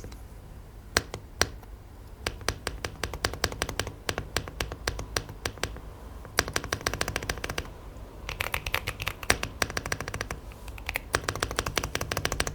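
Typing on a mechanical keyboard fitted with Aflion Panda tactile switches: a few scattered keystrokes, then fast runs of clacking strokes in bursts. The spacebar, on a Franken switch, sounds super loud, like punching something.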